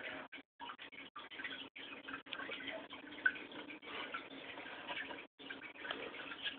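Aquarium water trickling and dripping from the tank's filter or aeration, with small ticks and a steady low hum underneath.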